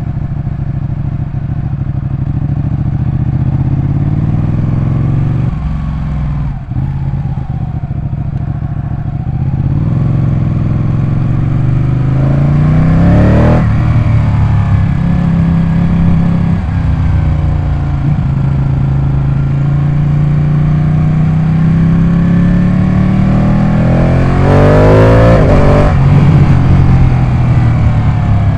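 Ducati 899 Panigale's Superquadro L-twin engine running and being revved. Its pitch climbs and falls back several times, with two long rises that drop away sharply about halfway through and again near the end, where it is loudest.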